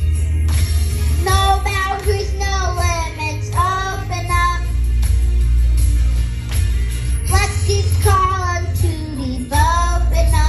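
A young boy singing a worship song in short phrases over backing music with a strong, steady bass.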